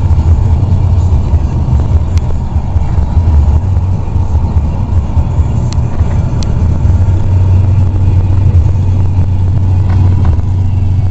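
Steady low rumble of a car's engine and tyres heard from inside the cabin while driving. Three faint sharp clicks come through, about two, six and six and a half seconds in.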